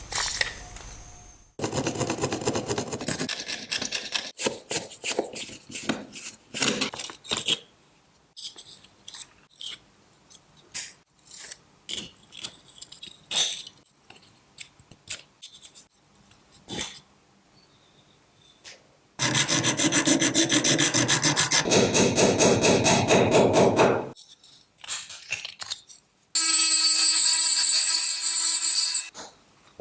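Rubbing and scraping strokes of hand restoration work, such as sanding or filing, in uneven runs. A louder, continuous stretch of rubbing comes about two-thirds of the way through, and a shorter, higher-pitched burst with a steady tone comes near the end.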